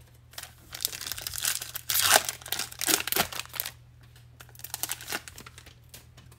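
Foil wrapper of a baseball card pack being torn open and crinkled: a run of crackling rustles over about three seconds, loudest in the middle, then a few lighter rustles and clicks.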